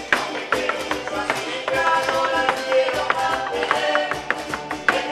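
Live Mexican folk music: a harp and strummed guitar-type strings playing a lively son, with the dancers' shoes tapping on the stage floor.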